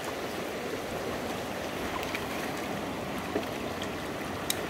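Shallow rocky river flowing and rippling over stones in a steady rush, with two light clicks near the end.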